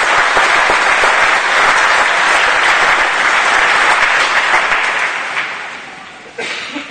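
Large audience applauding in a hall, the clapping dying away over the last couple of seconds, with a brief sharp sound near the end.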